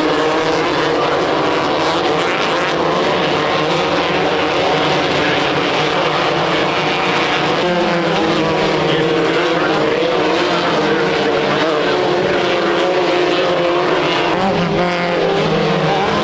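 Off-road race vehicle engines running hard at speed, their pitch shifting up and down now and then.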